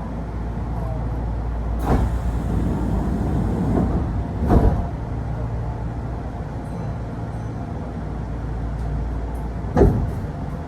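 Kintetsu Osaka Line electric train heard from inside the carriage: a steady low rumble, broken by three sharp knocks about 2, 4.5 and 10 seconds in.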